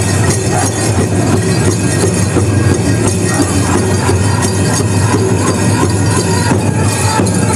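Powwow drum group singing a veterans' honor song over a steady, repeated drumbeat, loud and somewhat distorted in the hall.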